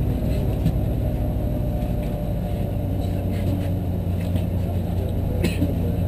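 Bus engine running with a steady low hum, heard from inside the passenger cabin while the bus drives along. A short rattle about five and a half seconds in.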